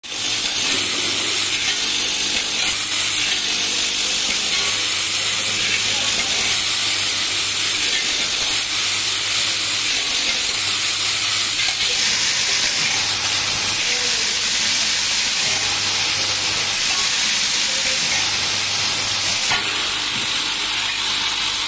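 Vibratory bowl feeders of a hex-key and screw packing machine running. Loose steel parts make a steady, dense metallic rattle as they shake in the bowls, over a low hum.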